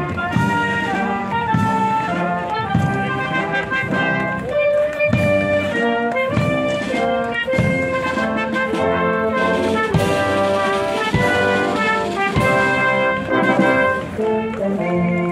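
Alpini military brass band playing a march while marching past: trumpets and trombones carry the tune over a sousaphone bass and a steady bass-drum beat.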